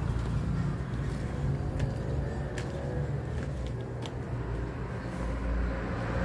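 Flip-flop footsteps slapping lightly on concrete and then tile, a few steps about a second apart, over a steady low rumble.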